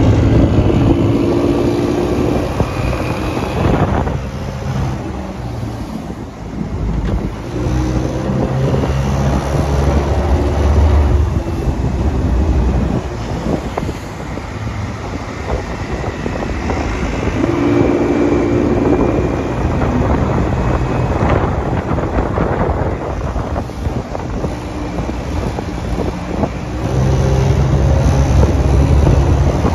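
Johnboat's outboard motor running under way in shallow water, its engine note rising and easing off with the throttle as the boat gets up on plane. Wind buffets the microphone throughout.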